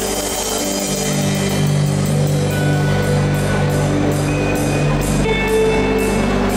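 A live folk band playing a chacarera, with a steady beat under long held notes.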